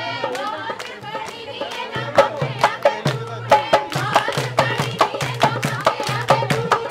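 Punjabi giddha: women singing boliyan over rhythmic handclaps. The clapping becomes a fast, steady beat of about four claps a second about two seconds in.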